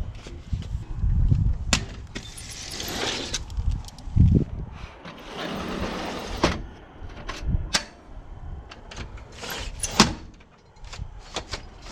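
A metal-framed screen door panel being fitted back into its door frame: scattered knocks, clicks and low thumps of the frame, with two longer scraping, sliding stretches at about two and five seconds in.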